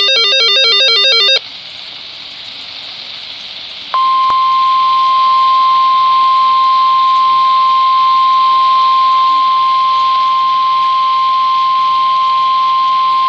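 A burst of digital SAME header tones from a NOAA Weather Radio warning broadcast cuts off about a second in, followed by a few seconds of radio hiss. About four seconds in, the steady single-pitched 1050 Hz warning alert tone begins, signalling that a National Weather Service warning is about to be read.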